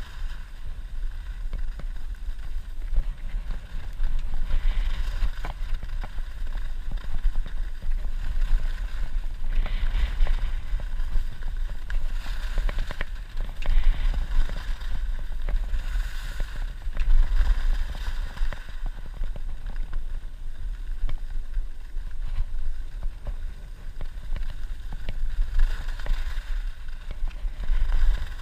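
Skis running and scraping on groomed, packed snow, the hiss swelling every few seconds with each turn, over a steady low rumble of wind buffeting the camera's microphone.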